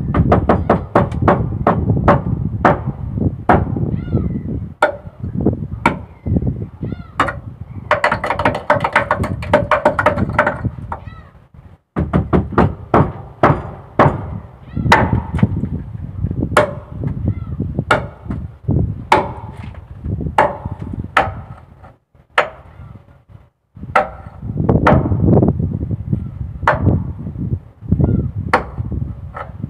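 Hand hammer striking steel on a fishing boat's deck: a run of sharp, irregular blows, two or three a second, each with a short metallic ring. The hammering pauses briefly twice, and a low rumble runs underneath.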